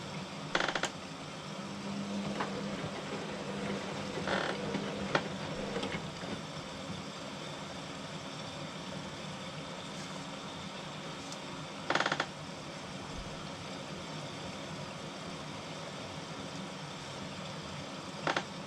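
Hotpoint WMA40 front-loading washing machine in its main wash: the drum motor runs with a steady low hum while the load and water tumble inside. There are four short, louder bursts of noise: one near the start, one about four seconds in, one around the middle and one near the end.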